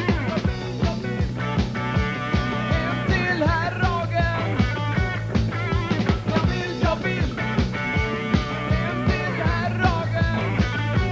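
A live rock band playing a song. The drum kit keeps a steady beat under electric guitar, and the drummer sings lead into his microphone.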